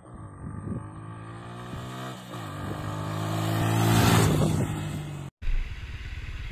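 Suzuki Gixxer 155 single-cylinder engine running as the motorcycle rides past, growing louder to a peak about four seconds in. After an abrupt cut near the end, a steady low rumble follows.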